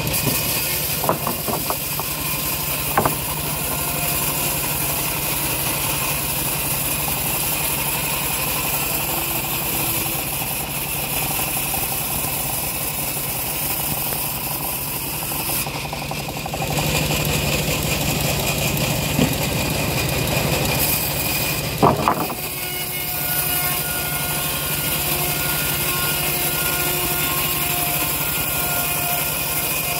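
Home-built bandsaw sawmill running steadily with a constant machine drone, sawing dry acacia timber. A few knocks come from the wood being handled on the saw table, one sharp and loud past the middle.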